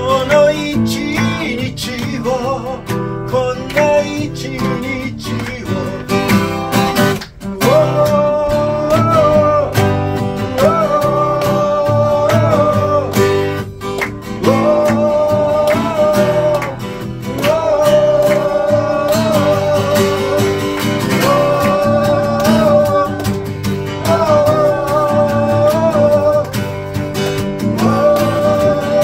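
A man singing with his own strummed acoustic guitar, the voice holding long notes.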